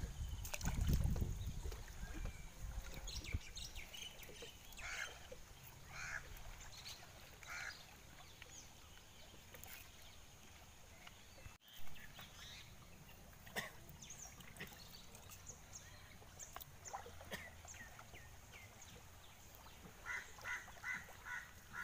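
Water splashing and sloshing as a fish tangled in a gill net is handled and worked free, loudest in the first second. Short calls come now and then, with a quick run of five near the end.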